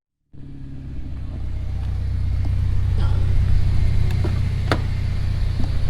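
Car engine idling steadily with a low, even note, starting a moment in after a brief silence, with a few faint clicks.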